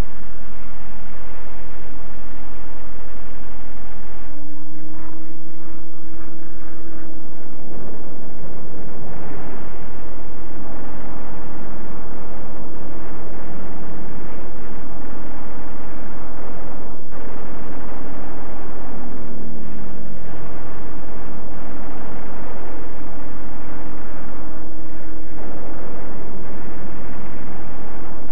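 Propeller-driven fighter plane engines droning loudly at a steady pitch. About nineteen seconds in, one engine's pitch drops sharply as a plane passes.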